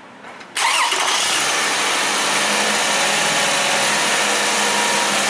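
2008 Toyota Sienna's 3.5-litre V6 started with the key: it cranks briefly and catches about half a second in. It then runs steadily at idle, heard up close in the open engine bay.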